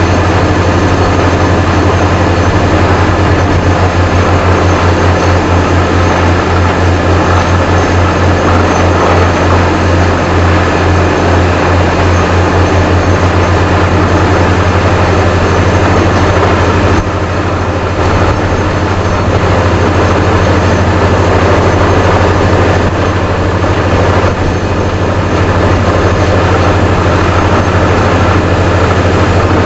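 Vesta VA650X2 diesel-driven portable screw compressor and truck-mounted drilling rig running under load for air drilling at 400 psi: a loud, steady heavy-engine drone with an even hiss over it, dipping slightly a couple of times.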